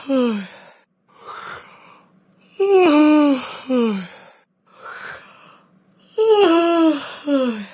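A person yawning aloud, over and over. Each yawn is a drawn-out groan falling in pitch, followed by a shorter falling one, with a breathy intake in between; the pattern repeats about every three and a half seconds.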